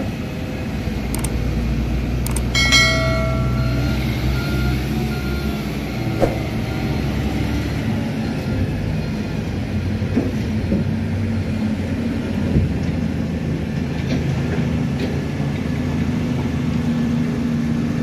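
Heavy diesel machinery, a crawler excavator and a dump truck, running steadily while the excavator loads the truck. About three seconds in, a brief beep sounds, and a few sharp knocks are heard along the way.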